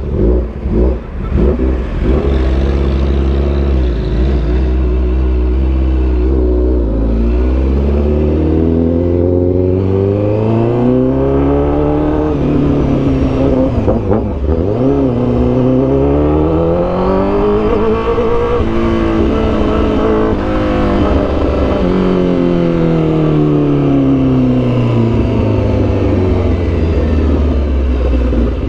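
Honda CBR1000RR-R Fireblade's inline-four through an SC Project CRT exhaust, heard from the rider's seat while riding in first gear. The engine pitch climbs twice as the throttle opens and then falls slowly as it closes. Wind rumbles on the microphone in the first few seconds.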